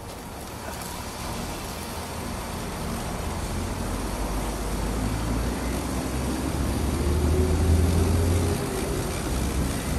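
Low traffic rumble from a passing vehicle that builds, peaks about eight seconds in and then eases, over a steady outdoor noise.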